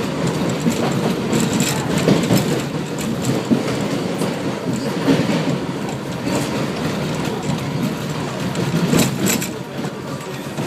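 A 7 train subway car running along the track, heard from on board: steady running noise of the wheels and car, with occasional sharp clacks as the wheels cross rail joints, two of them close together near the end.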